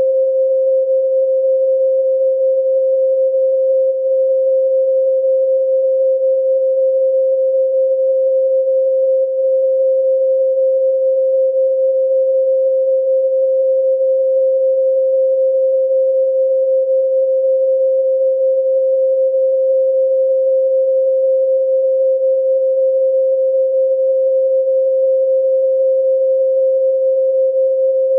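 A steady, unbroken pure sine tone at 528 Hz, the Solfeggio "MI" frequency, held at one pitch and level.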